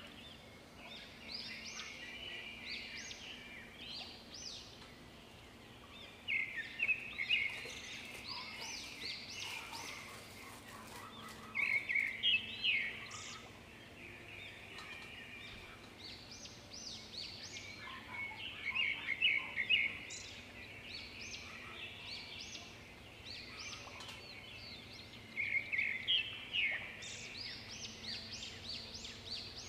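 A bird singing: short bursts of quick chirps and trills about every five to six seconds, over a faint steady hum.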